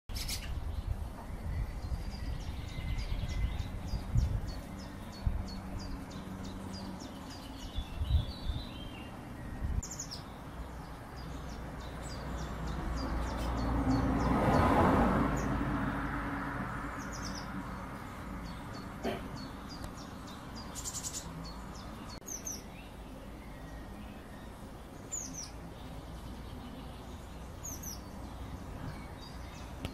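Tits calling: runs of quick, high, thin repeated notes and short downward chirps, over a low background rumble. A broad rushing noise swells and fades about halfway through.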